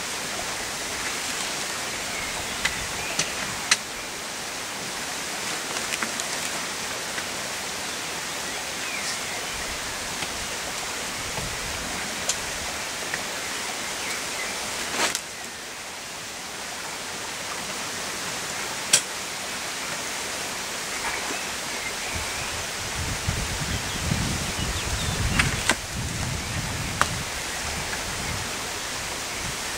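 A steady hiss of outdoor noise. Over it come scattered sharp clicks and knocks from handling a wooden beehive, and there is a low rumble near the end.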